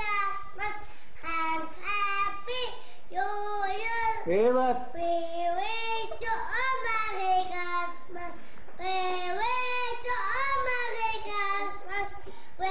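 A child singing a melody alone in a high voice, holding notes and sliding between them, with no instrument heard.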